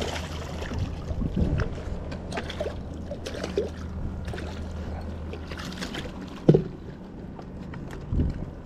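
A hooked sheepshead splashing at the water's surface beside a small boat, then scattered knocks and one sharp, loud thump about two-thirds of the way through as the fish is brought aboard.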